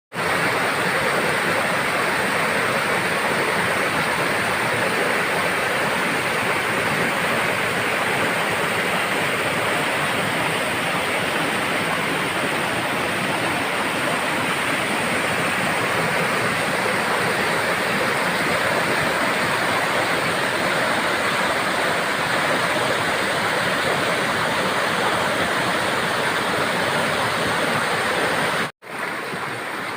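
Steady rushing water of a river in its upper reaches. About a second before the end the sound briefly cuts out, then the same rush continues a little quieter.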